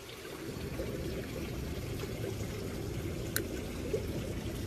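Running water trickling and pouring steadily, with a single sharp click about three and a half seconds in.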